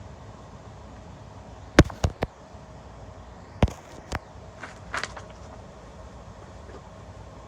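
Pokémon cards being handled: a few sharp taps and clicks, three close together, then two more and some softer ticks, over a steady background hiss.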